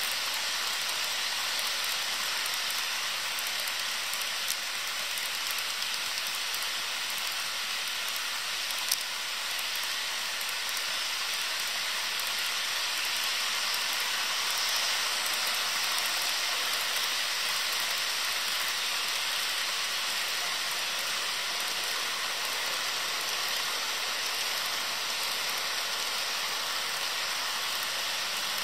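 HO scale model freight trains' wheels rolling steadily over the sectional track, making an even rushing hiss, with one small click about nine seconds in.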